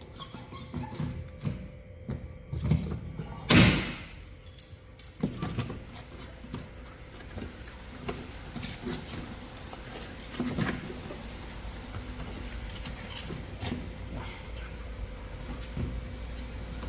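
Scattered light taps and clicks of paintless dent repair tools working a dent in a BMW 630i's aluminium hood, with one louder knock about three and a half seconds in.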